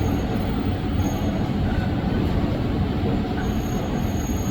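CNC milling machine running a peck-drilling cycle with a high-speed steel drill: steady machine noise with brief thin high-pitched whines near the start, about a second in, and again near the end.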